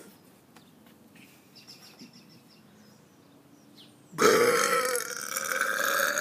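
A man's long, loud, deliberate burp of swallowed air forced out with the mouth held open. It starts suddenly about four seconds in and is still going at the end, a good one.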